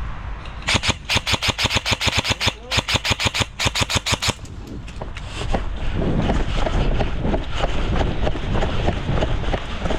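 Airsoft gun firing rapid full-auto bursts, two long strings of evenly spaced shots with a brief break between them, ending about four seconds in. Irregular knocks and rustling follow.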